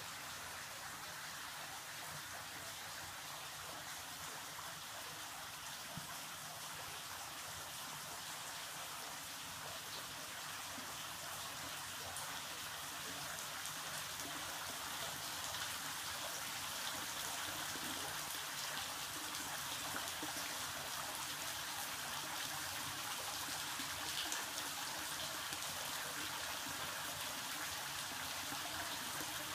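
Water trickling and dripping from a rock overhang into a small grotto pool: a steady splashing patter that grows somewhat louder about halfway through.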